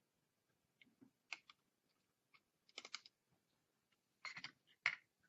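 Faint, irregular clicks and taps of small hand tools on a circuit board and its connector while a connector pin is heated with a soldering iron and eased out, with the loudest click near the end.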